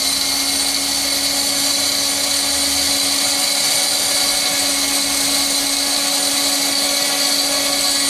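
DG180 high-speed herb pulverizer running at its single full speed, a steady motor hum with a high whine over it, grinding a batch to powder.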